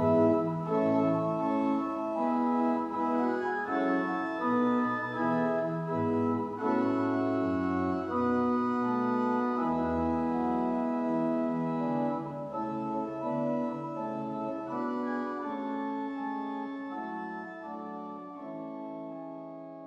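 Organ playing a slow passage of held chords that change every second or so, growing gradually quieter over the second half as it fades out.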